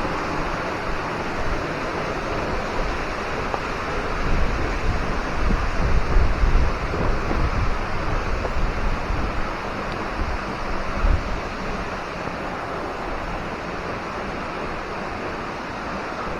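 Steady rush of falling water from Hemlock Falls, with wind buffeting the microphone at times in the middle.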